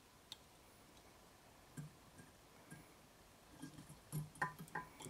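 Near silence with a few faint, scattered ticks of fly-tying tools and thread being handled at the vise, and slightly busier faint handling sounds near the end.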